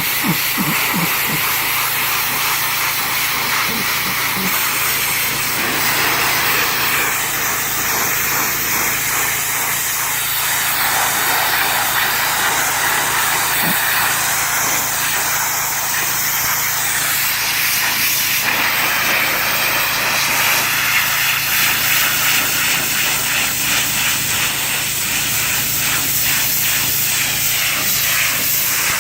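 Pressure washer spraying seat upholstery: a loud, steady hiss of water spray that shifts in tone now and then. The machine's steady hum sits underneath.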